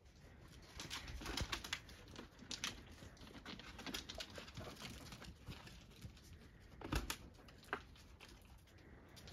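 Faint scuffling and clicking of puppies' paws on concrete and a plastic laundry basket, with a sharper knock about seven seconds in.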